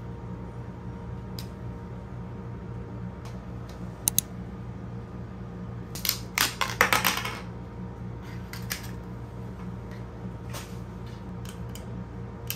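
Small plastic clicks and taps as highlighter pens and other small stationery are handled and set down on a desk, with a short burst of clattering about halfway through, over a low steady hum.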